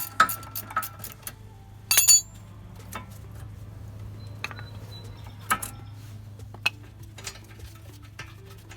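Metal hand tools clicking and clinking on a car's brake caliper bracket bolts as they are taken off: a quick run of ringing metal clicks in the first second or so, a brief sharp clank about two seconds in, then scattered clicks over a low steady hum.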